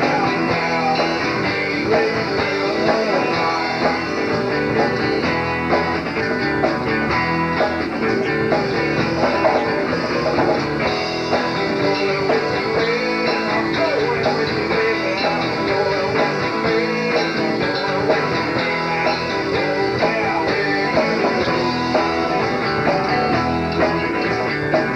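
Southern rock band playing, guitars to the fore over bass and drums.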